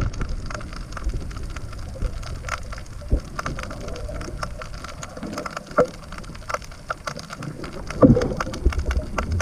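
Underwater sound picked up by a camera held below the surface: a steady scatter of sharp crackling clicks over a muffled water rumble, with a louder burst of water noise about eight seconds in.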